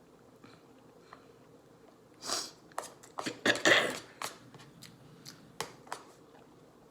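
Eating noodles at close range: two noisy slurps, about two and three and a half seconds in, the second the louder, among chewing and small sharp clicks.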